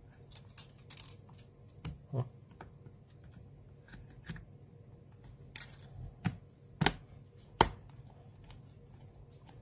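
Light clicks, taps and rustles of a replacement battery pack being handled and pressed into the opened case of a Samsung Galaxy Tab 4 10.1 tablet. Several sharper clicks come in the second half, the loudest about three quarters of the way through.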